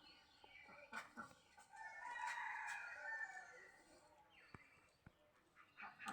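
A bird gives one long, harsh call starting about two seconds in and lasting well over a second, with a few short chirps and clicks around it.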